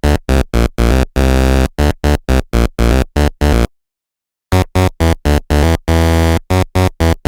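Electronic synthesizer music: a bouncy tune of short, clipped notes in two phrases, with a break of nearly a second between them about halfway through.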